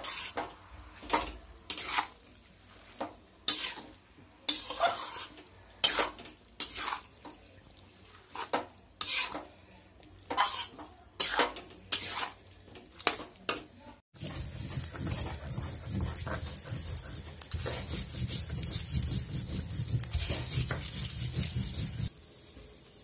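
Metal spatula stirring food in a metal kadhai, scraping and clinking against the pan about one to two times a second. After a cut about 14 s in, a steady rasping of dried red chillies and garlic being crushed on a stone grinding slab, which stops abruptly near the end.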